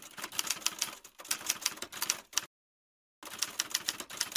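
Typewriter key-strike sound effect: rapid, sharp keystroke clicks, several a second. The clicks cut off completely for most of a second a little past halfway, then resume.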